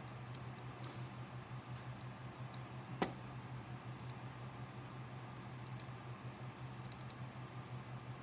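Scattered light computer mouse clicks over a steady low hum, with one sharper click about three seconds in.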